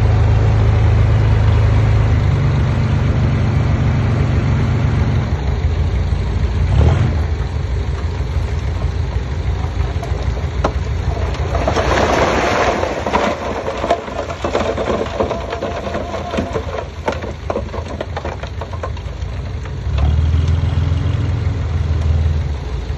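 Diesel engine of heavy earthmoving machinery running with a steady low drone, amid scattered clanks and knocks. The drone is strongest at the start and again near the end. A louder rushing noise comes about twelve seconds in.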